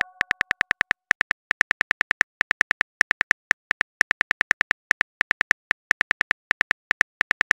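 Simulated phone-keyboard key clicks from a texting-story animation: a fast, even run of short ticks, about eight a second with a few brief pauses, one tick per letter typed.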